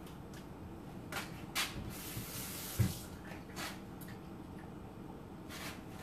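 Kitchen handling sounds: a few light knocks and clicks, with a brief run of tap water about two seconds in that ends in a dull thump.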